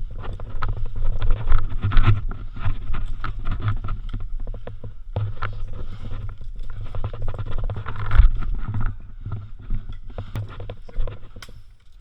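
Hurried footsteps, with gear and clothing knocking and rustling against a body-worn action camera, in a dense run of irregular knocks that eases off after about nine seconds.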